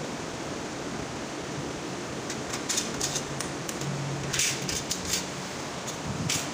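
Scissors snipping through the thin metal of a cut-open drink can, with short crisp snips and crinkles in clusters midway and near the end, over a steady hiss.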